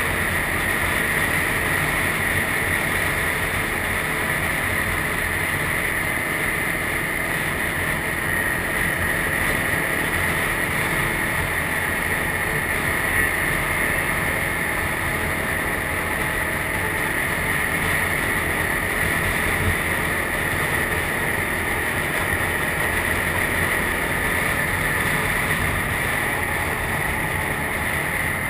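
ATV engine running steadily at cruising speed on pavement, heard from a camera mounted on the quad, mixed with wind rushing over the microphone.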